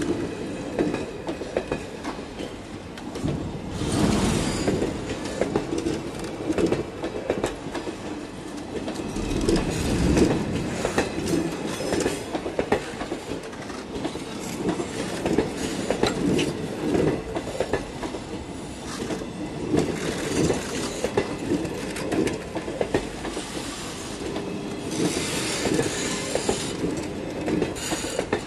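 Coaches of a train rolling past close by: steady rumble and clickety-clack of the wheels over the rail joints, with louder clattering surges every few seconds.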